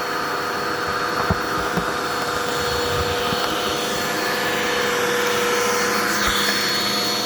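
Dirt Devil Endura Reach vacuum cleaner running steadily with a constant motor whine, with a couple of light knocks about a second and a half in.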